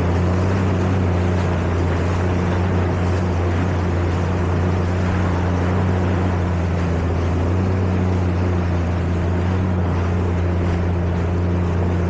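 Jet ski engine running at a steady speed: a constant low drone over an even rushing hiss.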